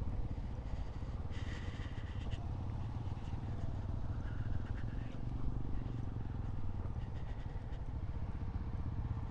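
Motorcycle engine running steadily at low speed.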